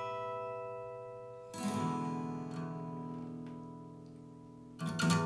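Acoustic guitar strummed in slow chords, each left to ring out and fade. A new chord is struck about a second and a half in, and another near the end.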